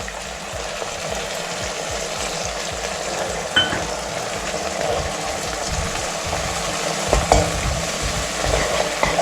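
Onions, green chillies and capsicum sizzling steadily in hot oil in a pan as they are stirred, just after vinegar and soya sauce go in. A few louder knocks of the spoon against the pan come in the second half.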